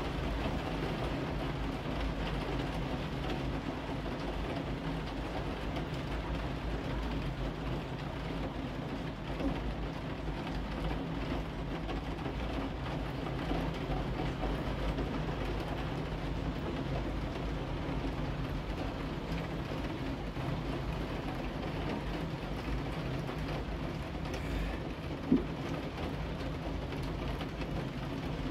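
Heavy rain falling steadily, an even hiss with a low steady rumble underneath; a single sharp tap near the end.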